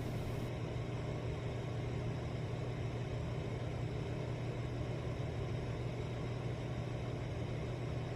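Steady low hum over a soft, even noise bed, unchanging throughout.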